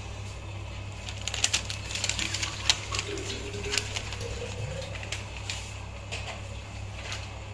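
Newspaper crinkling and rustling as it is pulled off the top of a pot of biryani after dum cooking, a flurry of sharp crackles between about one and four seconds in, with a few more after. A steady low hum runs underneath.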